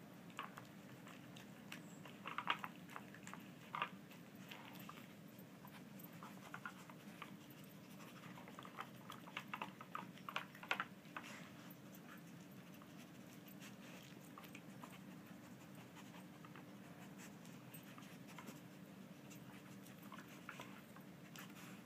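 Greyhound nosing and licking at a plastic Nina Ottosson Tornado dog puzzle: faint snuffling and licking with scattered clicks of plastic, a few louder clicks a couple of seconds in and a cluster around the middle. A steady low hum runs underneath.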